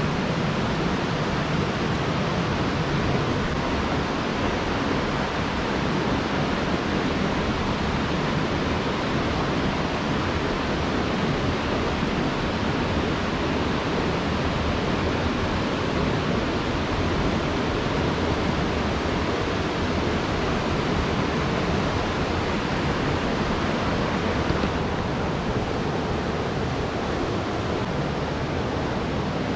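Steady rushing of a river running over rocks in a gorge, an even wash of water noise with no breaks; it turns a little duller near the end.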